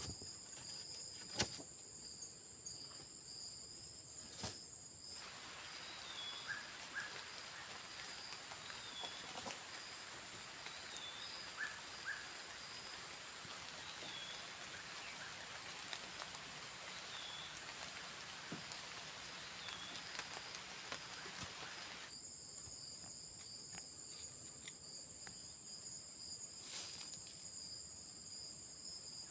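Forest insects droning in steady high-pitched bands, with scattered light clicks. For a long middle stretch a broad hiss covers them, and a short falling call repeats every second or two.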